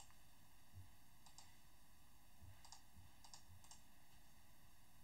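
A few faint computer mouse clicks and keyboard key presses, separate single clicks over near-silent room tone.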